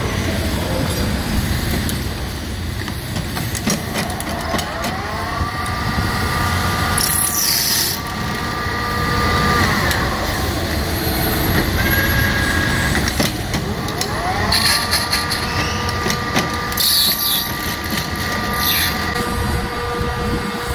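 Metal lathe running while its tool cuts brass stock into pressure cooker whistle parts: a steady machine noise with squealing tones from the cut that twice rise in pitch and then hold, and a few short high scraping noises.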